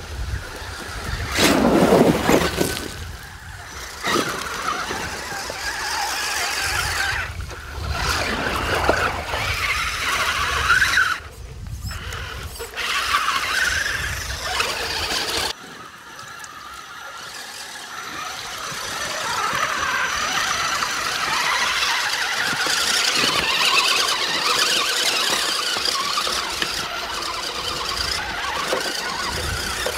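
Electric motors and geartrains of 1/10-scale RC crawler trucks whining unevenly as the trucks climb over rocks and through shallow creek water, rising and falling with the throttle. The sound breaks off and starts again about halfway through.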